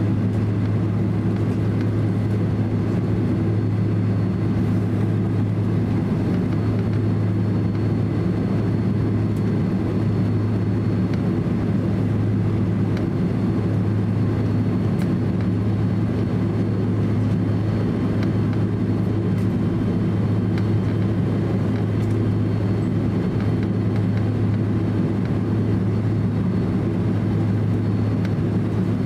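Steady cabin noise of a Boeing 767-300 airliner taxiing, its jet engines at idle: a deep even hum with a faint thin high whine over it.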